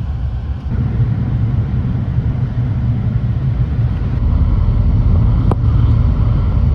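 A car driving, with a steady low rumble of engine and road noise and a brief click about five and a half seconds in.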